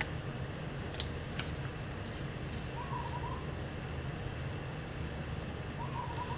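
Steady low background hum with a few light clicks and taps as a copper circuit board is handled. Two short, wavering hoot-like calls come through, about three seconds in and again near the end.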